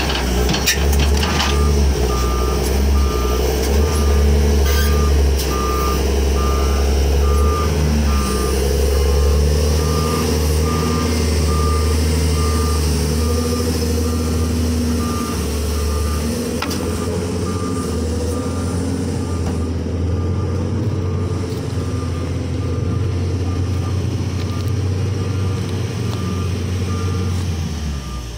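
LiuGong wheel loader's diesel engine running under load while its reversing alarm beeps steadily and evenly. A few sharp knocks come in the first couple of seconds, and the engine grows slightly fainter in the second half as the loader moves off.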